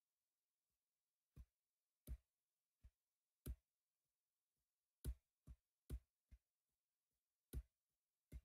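About ten sharp, irregular clicks, each with a low thump, coming every half second to a second, some much louder than others: clicks of a computer mouse as a web page is scrolled.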